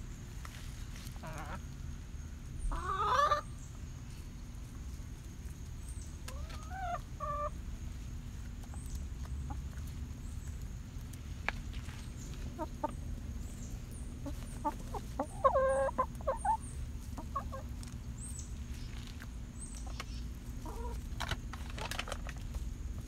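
Domestic hens clucking, with louder drawn-out calls about three seconds in and again around sixteen seconds, and a rising call in between.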